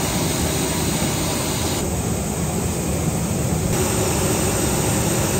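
Steady, loud rumble and rush of a train in motion.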